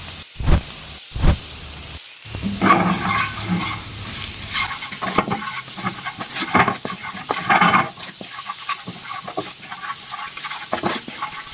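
Food sizzling in hot coconut oil while it is stirred and scraped in the pan. There are two short rising pops about half a second and a second in.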